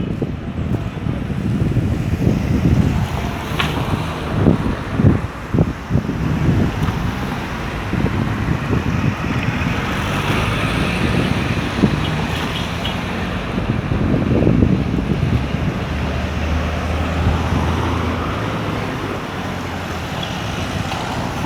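Street traffic noise: vehicles running and passing, with wind buffeting the microphone in gusts during the first few seconds.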